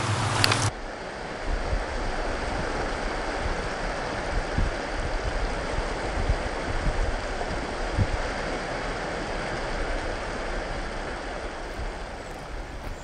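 Small waves washing onto a pebbly beach at low tide, a steady rushing hiss with occasional low thumps.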